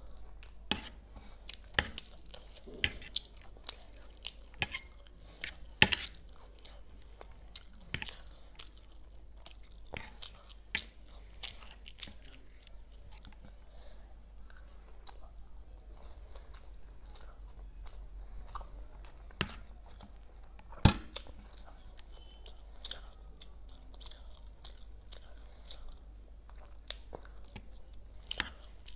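Close-up mouth sounds of a person eating chowmein noodles and chilli chicken: chewing and biting, with irregular sharp clicks and smacks scattered throughout, the loudest about six seconds in and near twenty-one seconds.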